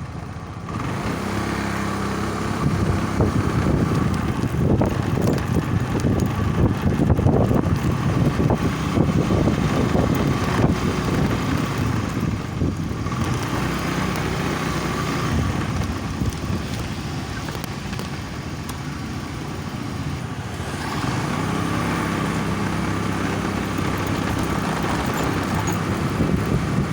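A motor vehicle underway in road traffic: engine running with road and wind noise, easing off for a few seconds past the middle and picking up again.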